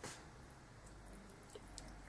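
Near silence: faint room tone with a few tiny ticks.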